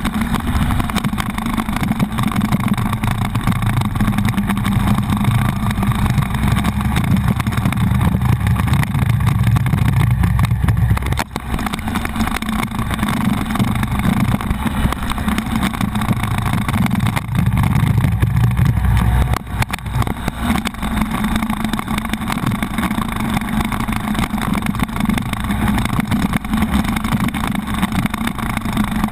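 Buell XB9SX's air-cooled V-twin engine running while the motorcycle is ridden, heard from a camera on the handlebars. The sound is loud and steady, with two brief dips in level, about 11 and 19 seconds in.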